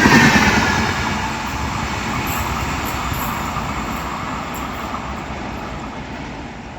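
An express passenger train running past at about 110 km/h: steady wheel-and-coach running noise that fades away as the train recedes.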